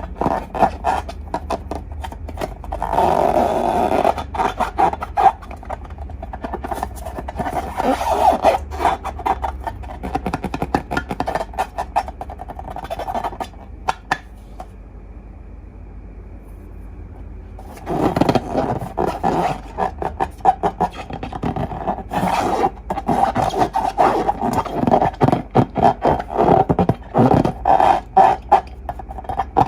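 Slime and balloons being handled by hand: dense runs of sticky clicks, crackles and squishes, which stop for a few seconds about halfway through and then resume.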